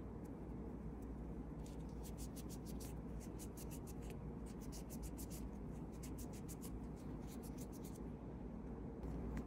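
Quick, rhythmic scratching strokes of a nail tool working on a fingernail, several strokes a second, in two runs of about a second and a half: one around two seconds in, the other around six seconds in. A steady low hum runs underneath.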